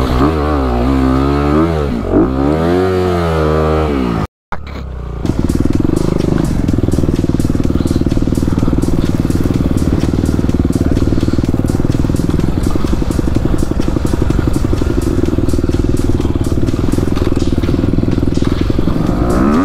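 Dirt bike engine heard from the rider's helmet, revving up and down for the first four seconds. After a brief dropout it runs at a steady pitch.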